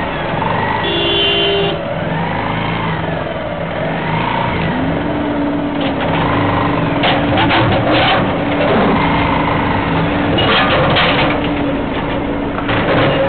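Bajaj Pulsar single-cylinder motorcycle engine running while riding over a rough, potholed road, its pitch rising and falling with the throttle in the first few seconds. Clusters of rattling knocks come about six to eight and again about ten seconds in, as the bike and clamped camera are jolted by potholes.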